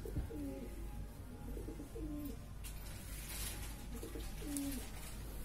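Pigeon cooing in three short, wavering phrases.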